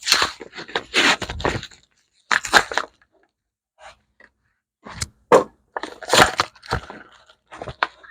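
Plastic packaging crackling and tearing in irregular handfuls as a new package is opened, the noise coming in bursts with short pauses between.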